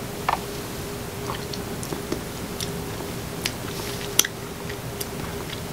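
Mouth sounds of someone drinking and tasting a bottled protein shake: soft sips and swallows, then lip smacks and small tongue clicks, with a sharper click about four seconds in, over a faint steady hum.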